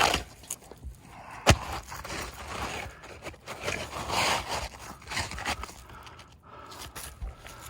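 A new cedar shingle scraping and rubbing as it is slid up into place among the old shingles, in irregular swells, with one sharp knock about a second and a half in.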